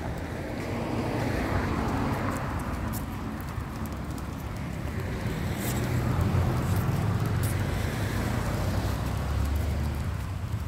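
Road traffic: motor vehicles passing, swelling about a second in and again more strongly around six to nine seconds in over a steady low rumble.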